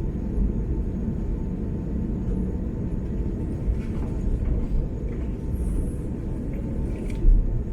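Steady low cabin rumble inside an Airbus A330-300 airliner on the ground after landing, with a few faint clicks and a brief low thump near the end.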